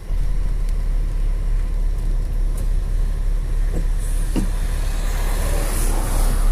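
Steady low rumble of a coach's engine and running noise heard from inside the driver's cab, with a couple of faint clicks about four seconds in.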